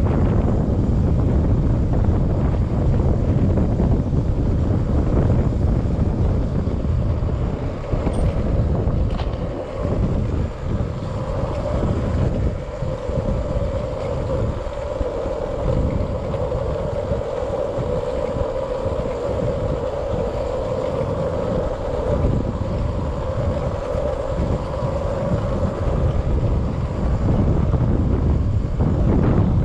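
Wind buffeting the camera microphone and tyre noise from a KTM Duke 200 coasting downhill with its engine switched off, in neutral. The wind rumble eases for a few seconds in the middle as the bike slows, and a steady mid-pitched hum runs through the middle stretch.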